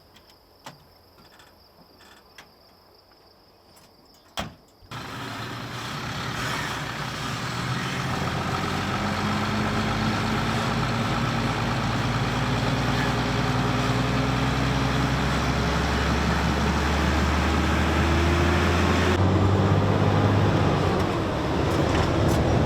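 Quiet at first with a few light clicks, then the grain truck's engine comes in suddenly and pulls away. Its note rises steadily under load, then drops and climbs again near the end as it changes gear.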